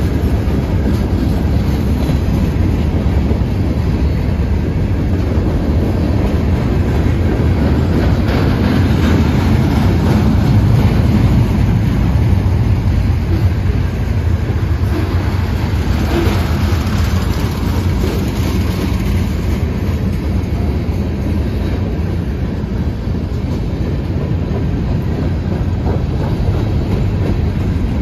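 Freight train cars of boxcars, tank cars and covered hoppers rolling past: a steady noise of steel wheels on rail, with a few knocks as the cars go by.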